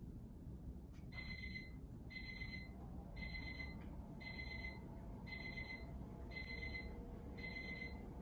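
Alarm beeping about once a second, short identical beeps repeated: a wake-up alarm going off. A low steady hum lies underneath.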